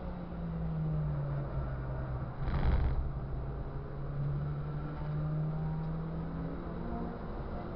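Race car engine heard from on board while lapping, its note sinking and rising with the revs through the corners. A brief rumbling thump about two and a half seconds in is the loudest moment.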